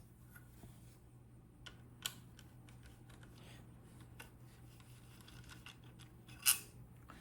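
Small metal clicks and taps from the trigger screw and nut of a Daisy air rifle as they are worked loose and backed out, with a sharper click about two seconds in and a louder one near the end.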